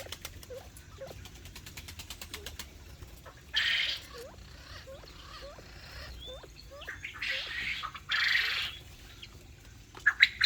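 Aviary birds calling with many short, low, upward-sliding notes, with a run of fast ticking early on. Several loud, half-second noisy bursts come about three and a half seconds in, twice around seven to eight seconds, and again at the very end.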